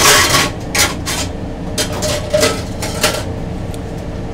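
Kitchen clatter: a run of sharp knocks and clinks of utensils and takeout containers over about three seconds, then fewer, over a steady hum.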